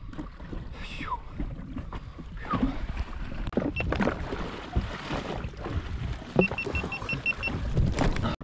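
Water and wind noise around a jet ski's hull, with scattered knocks and clunks on board. Near the end comes a quick run of about seven short, high electronic beeps.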